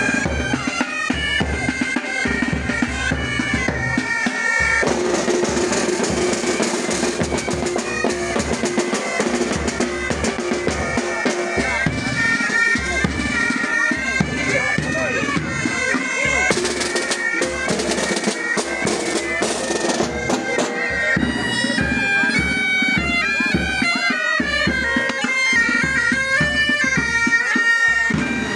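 Pipe band playing: bagpipes sound a stepping marching melody over a steady drone, with drums including a bass drum beating time.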